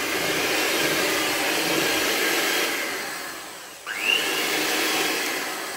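Electric hand mixer beating thick cake batter in a bowl, a steady motor whir. It dies down about three and a half seconds in, then spins back up with a short rising whine.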